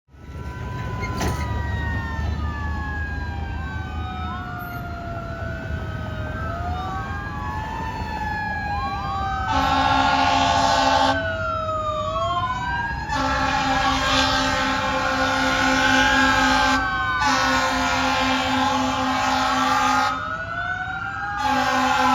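Fire apparatus sirens wailing, several overlapping and sweeping up and down in pitch, some slowly and some in quicker arcs. An air horn joins with a short blast about ten seconds in, then two long blasts and another starting near the end.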